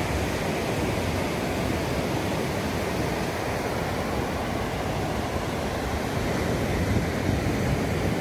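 Ocean surf breaking on a beach, mixed with wind buffeting the microphone: a steady rushing noise.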